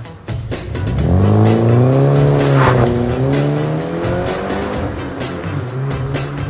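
Car engine revving, its pitch rising from about a second in, dipping briefly, then falling back over a few seconds, over background music with a steady beat.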